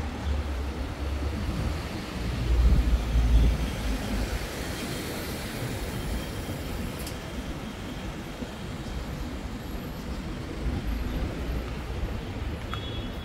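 Rumble of passing traffic over steady street noise, loudest about two to four seconds in.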